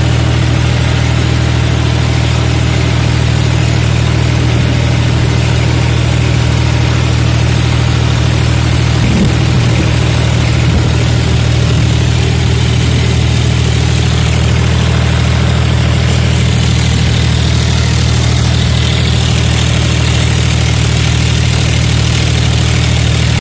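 John Deere farm tractor's diesel engine running steadily at an even speed, heard close up from the driver's seat.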